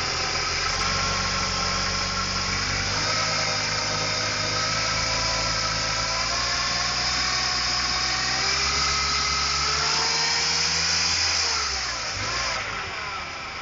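A 1999 Ford Ranger's 2.5-litre four-cylinder engine idling steadily, heard close under the open hood. Near the end the low hum fades and the sound dips briefly.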